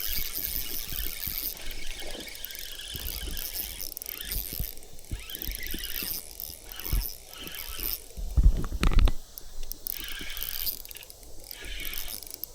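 Fishing reel being cranked, its gears squealing and clicking as line is wound in, with scattered knocks from handling the rod.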